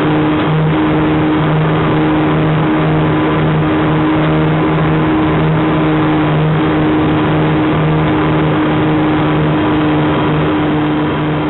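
Propeller aircraft engine droning steadily in flight at a constant pitch, with a slight regular pulse about once a second.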